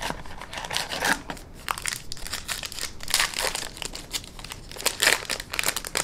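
Crinkling of a baseball card pack wrapper being handled and opened by hand, coming in irregular spells of sharp crackles, the densest about three and five seconds in.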